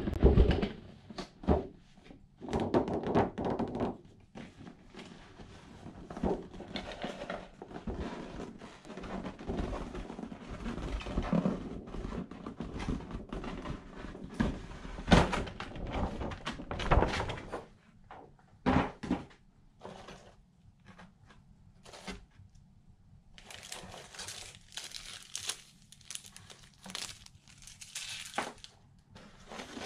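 Cardboard gift box being handled and opened: knocks and thunks as the box and its windowed card lid are moved about and set down on the table. From about two-thirds of the way in, hands rustle through the box's shredded crinkle-paper filler.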